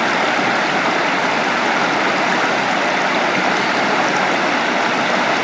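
Pilot Creek running in a steady rush, splashing through shallow chutes and small cascades over smooth rock slabs at University Falls.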